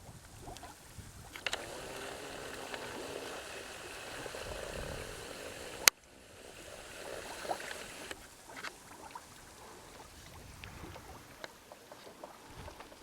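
Mud volcano vent bubbling as gas comes up through wet mud, steady for the first half. A sharp click comes midway, after which it is quieter, with scattered small pops.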